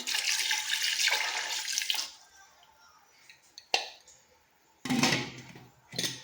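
Water pouring into a cooking pot for about two seconds, then stopping. It is followed by a sharp knock and then a heavier clatter with one more knock, kitchenware being handled.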